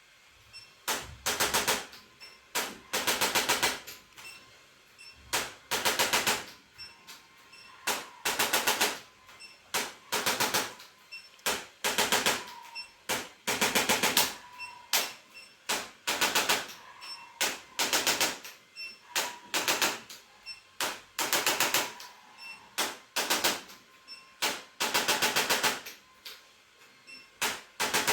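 Handheld electric percussion device, such as a massage gun, running in short bursts of rapid tapping. Each burst lasts about half a second to a second, and it is switched on and off again and again with brief pauses.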